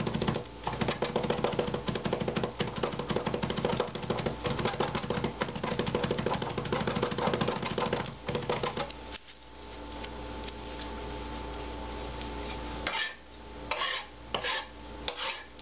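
Kitchen knife rock-mincing garlic on a plastic cutting board: rapid, even taps of the blade for about nine seconds. Then the chopping stops, leaving a steady background hum, and near the end a few separate knocks and scrapes come as the blade gathers the minced garlic.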